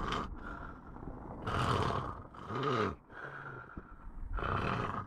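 A person snoring: a series of rasping, noisy breaths, one of them carrying a snore tone that rises and then falls.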